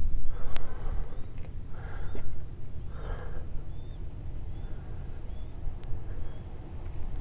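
A person breathing heavily, four or five audible breaths, over a steady low wind rumble on the microphone.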